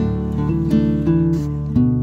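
Background music: acoustic guitar playing a run of plucked notes that change every few tenths of a second.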